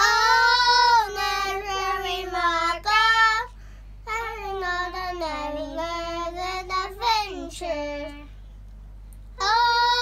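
Young girls singing a school song at a studio microphone, in held, sustained sung phrases. There is a short break near the middle and a longer pause shortly before the end.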